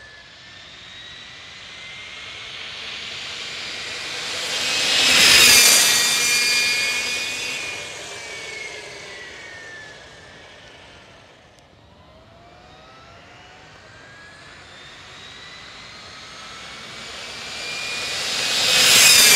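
Electric go-kart with a Castle Creations 800KV brushless motor and XLX2 controller passing at high speed, twice. Its high motor whine rises in pitch as it comes in and drops as it goes by, over tyre and wind rush. The passes are loudest about five seconds in and again near the end.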